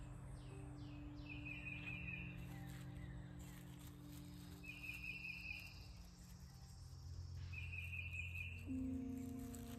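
Faint garden ambience: an insect's short buzzy trill, each about a second long, repeating three times about every three seconds over a steady low hum.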